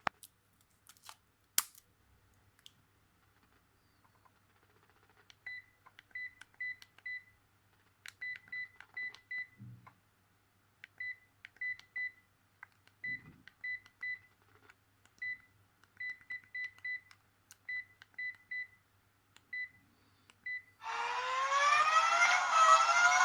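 Sharp GX25 mobile phone's keypad beeping: many short, high beeps of one pitch in irregular runs as its buttons are pressed. Near the end a ringtone melody starts playing loudly.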